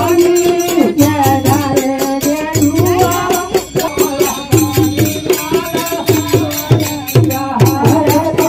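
Shiv Charcha devotional folk song: a man sings into a microphone over a steady drum beat and jingling percussion.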